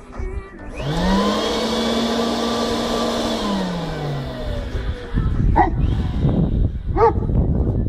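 Leaf blower motor whine rising quickly as it is switched on, holding steady for about two and a half seconds, then winding down. About a second later the blower starts again with a louder rush of air, and two short sharp sounds about a second apart cut through it.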